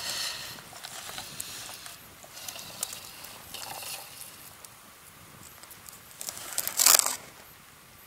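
Handling noise of an ice-fishing tip-up being set over a hole: scattered small clicks and rustles of the plastic disc, spool and line, with one louder brief rustle about seven seconds in.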